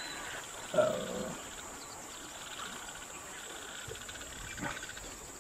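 Steady high insect whine over faint outdoor ambience, with a short animal call about a second in.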